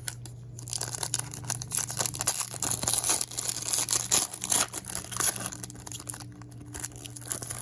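A plastic trading-card pack wrapper being torn open and crinkled: a dense crackling that starts about half a second in, is heaviest in the middle and dies down near the end.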